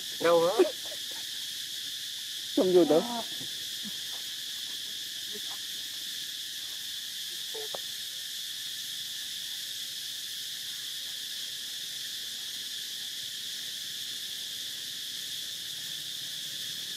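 Steady high-pitched insect drone. Two short voiced calls stand out, the first right at the start and the second about three seconds in, with a faint one near eight seconds.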